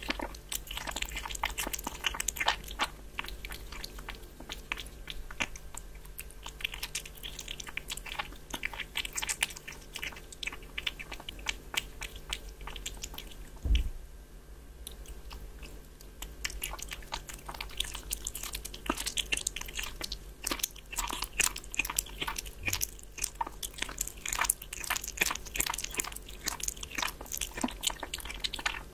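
Kitten chewing and licking raw meat from a bowl, close up: a fast, irregular run of wet clicks and smacks that thins out briefly a couple of times. One short low thump about halfway through.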